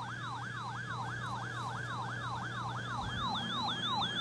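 Electronic yelp-style alert siren tone: a falling pitch sweep repeated about four times a second, over a steady low hum.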